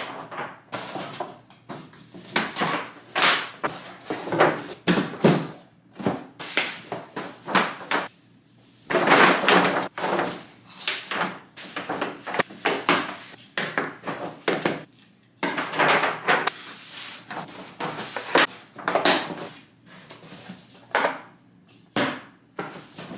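Stiff paper shopping bags rustling and crinkling as they are lifted and emptied, with irregular knocks of cardboard gift boxes being set down on a table.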